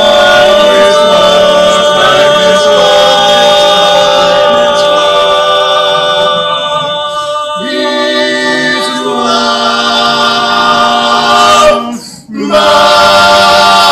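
Male vocal quartet singing a cappella, holding long sustained chords in close harmony as the song ends. The chord changes about halfway through, breaks off briefly near the end, and a final chord is held.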